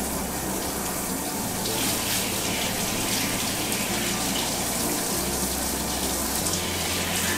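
Handheld shower head running steadily, its spray hitting a wet cat and splashing on the bathroom floor as the cat is rinsed after shampooing.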